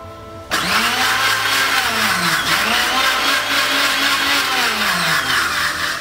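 Electric mixer grinder (mixie) switched on about half a second in and running loud for about five seconds while it blends cooking oil in its jar, the motor pitch wavering up and down, then dying away at the end.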